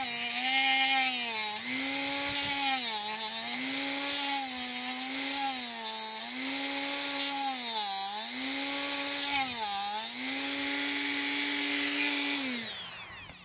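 Dremel rotary tool with a 3D-printed tungsten grinder attachment, running and grinding a 1/16-inch TIG tungsten electrode to a point: a steady motor whine with grinding hiss, its pitch dipping briefly every second or two as the motor takes load. Near the end it is switched off and runs down.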